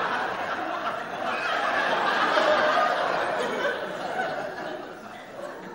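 Studio audience laughing, swelling again about two seconds in and dying away near the end.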